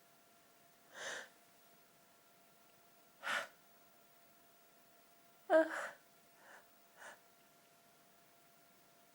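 A woman's short breathy gasps as a sneeze from her dust allergy builds: five breaths in a few seconds apart, the loudest about halfway, with a brief voiced catch.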